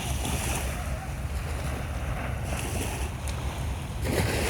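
Ocean surf breaking and washing up the beach in a continuous rush, with wind rumbling on the microphone. A fresh wave surges in near the end.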